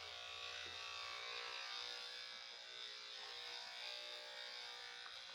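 Corded electric dog grooming clippers running with a steady buzz as they cut through the dog's coat.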